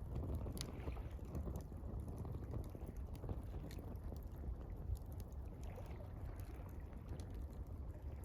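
Campfire crackling with a few sharp pops, over gently lapping water and a steady low rumble.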